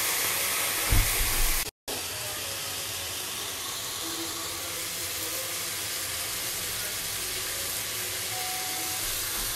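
Broccoli, garlic and chilli frying in hot oil in a non-stick wok: a steady sizzling hiss. A single thump about a second in, and the sound drops out for a moment just before two seconds in.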